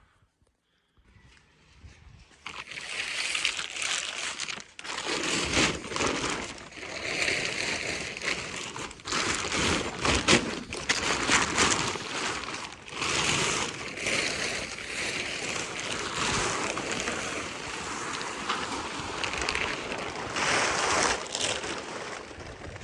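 Engine oil pouring out of the engine's drain and splashing into a pan, loud and uneven, with crackling spatters; the first fluid out was murky and it is now running as oil.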